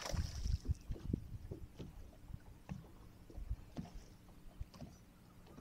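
Water splashing and irregular low knocks against the boat as a hooked northern pike is worked toward a landing net, with a short splash about the start.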